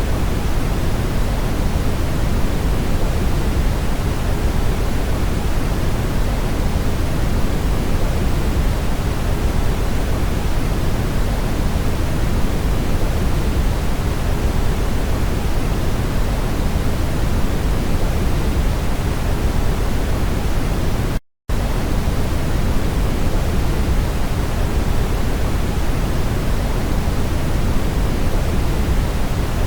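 Brown noise: a steady, deep, even hiss, heaviest in the bass. It drops out to silence for a split second about 21 seconds in, then carries on unchanged.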